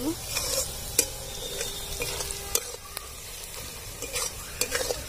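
Sliced onions sizzling in hot oil in a steel karahi, stirred with a flat metal spatula that scrapes and clicks against the pan several times, sharpest about a second in, two and a half seconds in and near the end. The onions are fried and the pan is ready for the spices.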